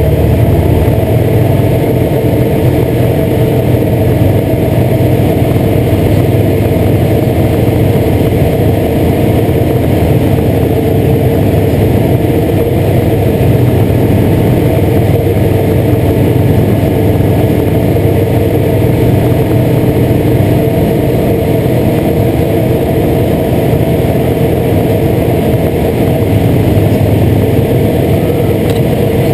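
Light propeller aircraft's engine and propeller running steadily in flight, at an even, unchanging pitch.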